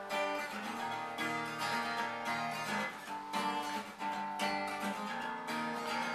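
Acoustic guitar strumming chords as a song's instrumental intro, with no singing yet.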